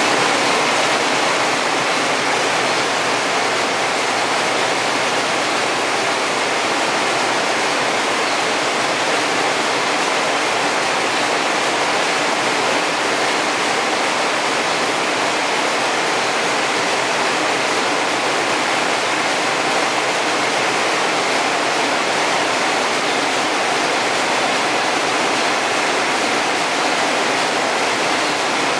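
Many narrow-fabric needle looms weaving polyester boning tape, running together as one loud, steady mechanical noise with no pauses.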